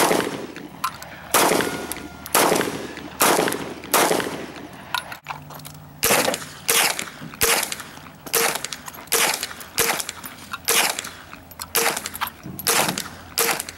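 A string of gunshots fired one at a time at a steady pace, each shot sharp and ringing: about five shots roughly a second apart, then, after a brief break about five seconds in, a quicker run of more than a dozen shots under a second apart.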